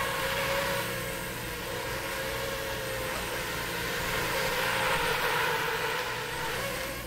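FPV racing quadcopter's brushless motors and propellers whining while it hovers and drifts low, the pitch of the whine wandering up and down as the throttle changes. The sound stops abruptly near the end.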